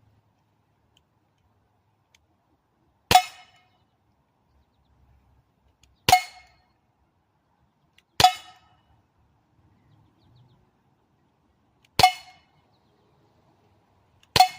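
Umarex Glock 19 air pistol fired five single shots a few seconds apart, each a sharp crack with a short ring after it.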